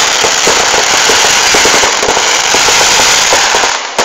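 Fireworks crackling loudly in a dense, unbroken barrage of rapid pops, dipping briefly just before the end.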